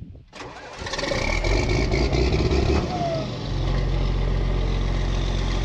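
John Deere 4640 tractor's six-cylinder diesel engine starting up and running unevenly for a few seconds. It settles into a steady low idle about three and a half seconds in.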